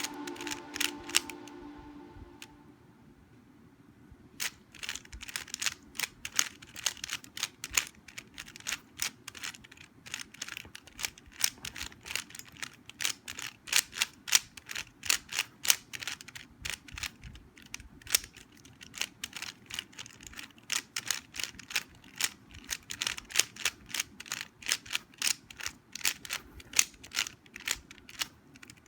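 Plastic Rubik's cube being turned quickly by hand, its layers clicking in fast, irregular runs of several snaps a second. In the first couple of seconds a fading musical tone is also heard, followed by a short lull before the clicking resumes.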